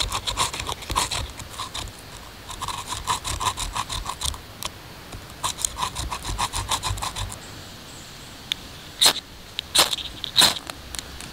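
Birch bark being scraped into fine tinder with the back edge of a Gerber knife, a quick run of dry rasping strokes. After a short pause comes a ferrocerium rod struck three times, each a sharp scrape, throwing sparks onto the shavings.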